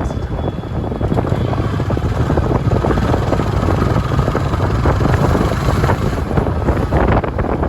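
Road traffic: engines of passing vehicles running with a loud, steady low rumble, swelling a little near the middle.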